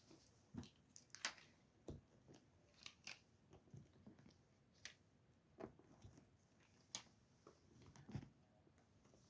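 Faint, scattered crinkles and small clicks of stickers being peeled from their backing sheet and pressed on by hand.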